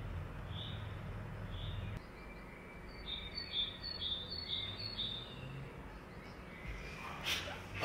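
Small songbirds chirping: a short high note repeated about once a second, then from about three seconds in a quicker, steadily repeating pattern of alternating higher and lower notes. A low background hum runs under the first two seconds and then drops away.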